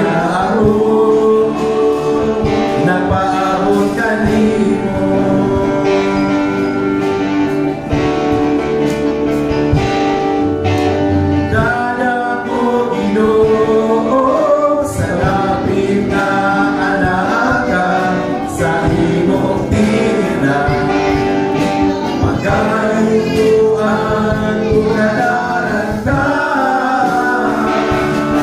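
Several voices singing a gospel worship song together, with instrumental accompaniment.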